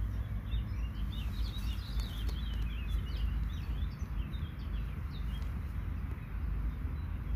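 A small songbird twittering: a quick run of short high chirps over the first four seconds or so, above a steady low outdoor rumble.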